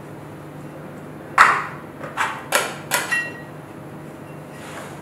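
Metal spatula knocking and scraping against a glass baking dish while pressing down a kunafa layer: five sharp clinks in under two seconds, the first loudest, the last leaving a brief ring.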